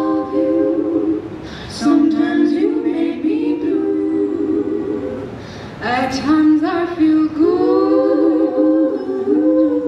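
Three female voices singing a cappella in harmony through microphones and a PA, in long held phrases broken by two short pauses, about a second and a half in and about five and a half seconds in.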